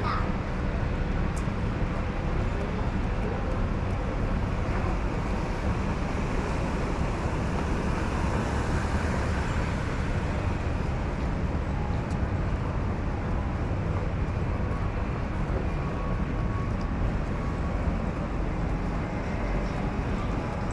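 Steady city street ambience dominated by the rumble of passing road traffic.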